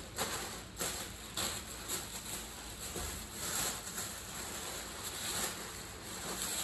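Plastic grocery bags rustling and crinkling in short, irregular bursts as groceries are handled, over a faint steady hiss.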